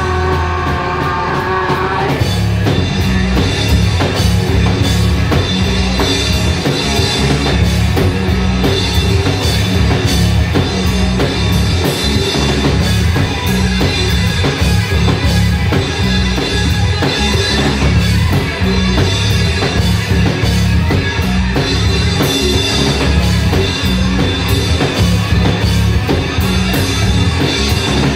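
Live rock band playing loud: bass guitar, electric guitar through an amp and drum kit. A sung line is heard in the first couple of seconds, then the band plays on without vocals.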